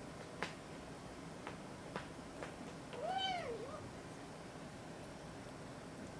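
Burmese kitten meowing once, about three seconds in: a single short call that rises and then falls in pitch.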